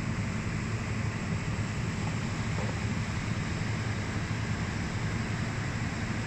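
Steady low rumble with an even hiss and no distinct events: constant background noise of the room, of the kind made by ventilation or air handling.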